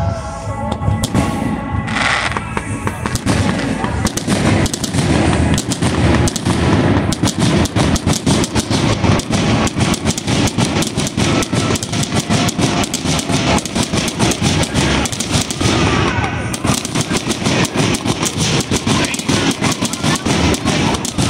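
Aerial fireworks bursting overhead: a few bangs at first, then from about four seconds in a dense, rapid barrage of bangs and crackles, many reports a second.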